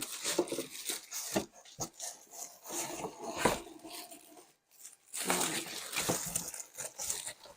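Rustling and scraping of packaging being handled, with scattered sharp knocks and clicks, as a part is worked loose from an air fryer's box. A short pause a little past halfway.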